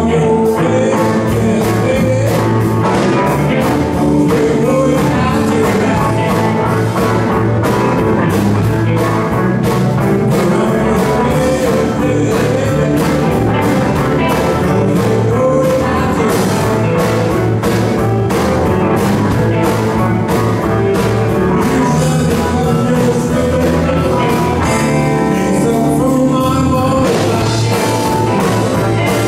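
A live rock band playing through a PA: electric guitars, electric bass, keyboard, drum kit and saxophones, with a steady drum beat.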